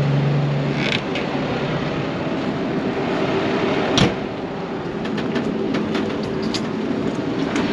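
Tractor engine running as it drives off, with a sharp knock about four seconds in and a few lighter clicks and clatters near the end.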